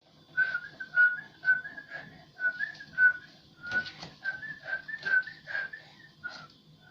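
A nine-month-old baby whistling: a string of short, breathy whistled notes, about two a second, each a brief high tone, some stepping up slightly in pitch.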